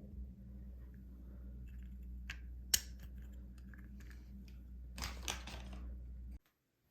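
Small clicks and scrapes of a nut being worked by hand into the slot of a handheld bidet's holder bracket, with one sharp click about three seconds in and a flurry of clicking about five seconds in, over a steady low hum. The sound cuts out just before the end.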